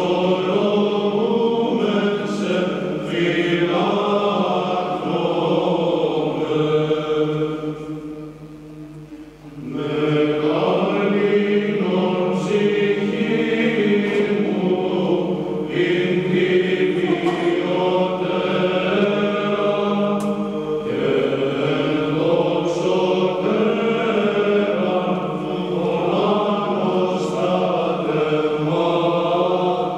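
Men's choir singing a Byzantine chant hymn unaccompanied, in long held phrases, with a brief lull about nine seconds in before the next phrase.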